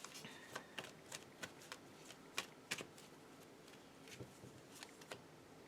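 Tarot cards being handled on a table: a scatter of faint, irregular light clicks and taps.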